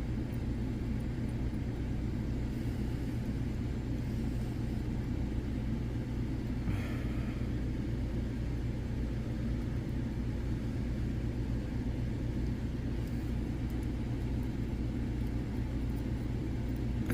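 Steady low background hum and rumble, with a few faint small ticks and a brief rustle about seven seconds in.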